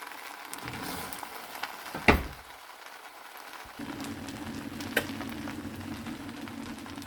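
Faint crackling sizzle of the just-cooked pancit noodles in a hot pan after the flame is off, with a sharp knock about two seconds in and a low steady hum that comes in about four seconds in.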